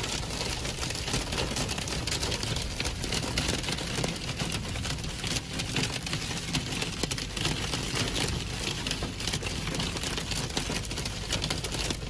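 Hail and heavy rain pelting a car's windshield and roof, heard from inside the cabin: a dense, steady clatter of small hits over a low rumble.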